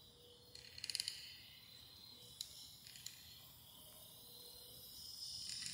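Faint crickets chirping in short, high trills over a quiet background hiss.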